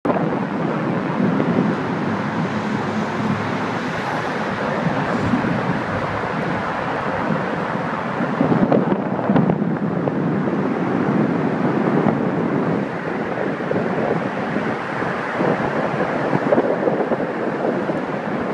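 Steady road traffic noise on a bridge with wind buffeting the microphone, swelling briefly a few times.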